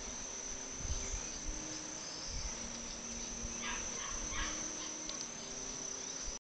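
Steady high-pitched insect drone in the background, with low thumps of wind on the microphone and a few short rasping sounds a little past halfway; the sound cuts off suddenly near the end.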